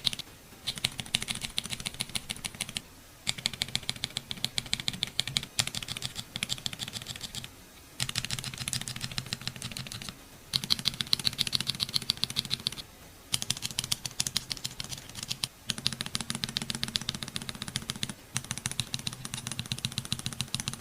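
Akko mechanical keyboard switches on a switch tester being pressed rapidly, many clicks a second. Seven runs of about two to four seconds each are separated by brief pauses as the test moves from one switch to the next.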